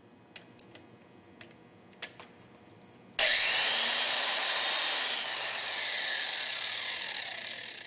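A few light clicks, then about three seconds in the valve seat grinder's electric drive motor starts and a 60-degree throating stone grinds the valve seat with a loud, steady grinding noise. Around two seconds later the grinding eases and a falling whine follows as the motor winds down.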